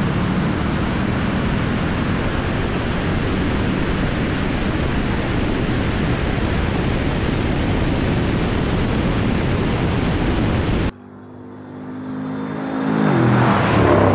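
Steady rush of wind and road noise from a vehicle moving at speed. About eleven seconds in it cuts off suddenly to a quieter engine hum, then a Dodge Charger's 5.7 Hemi V8 passes close at speed, its engine and tyre noise swelling to a peak near the end and starting to fall away.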